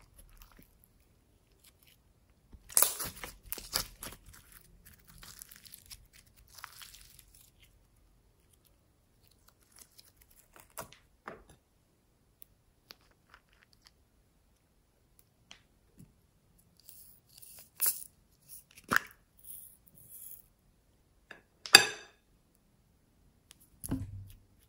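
Glossy slime squeezed and stretched by hand, crackling and popping in a burst of sharp sticky clicks that trail off. Later come scattered sharp clicks and a soft thump from small plastic toys and containers being handled.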